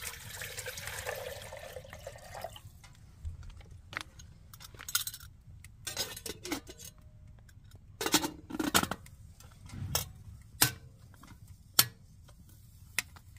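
Stainless-steel Firemaple kettle's lid and wire handle clinking and knocking against the pot as they are fitted and adjusted on the stove top: a dozen or so separate metal clicks, some with a short ring. For the first two seconds or so a watery hiss comes before them.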